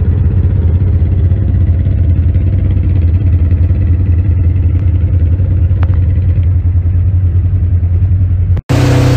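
Side-by-side UTV engine running at a steady pace, a low even note with no revving.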